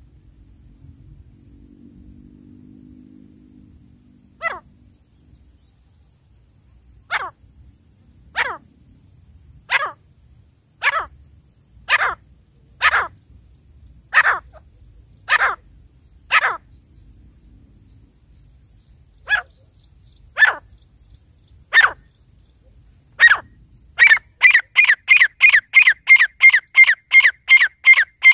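Grey francolin (teetar) calling: sharp single calls about one a second, a short pause, then a louder rapid run of about four calls a second near the end.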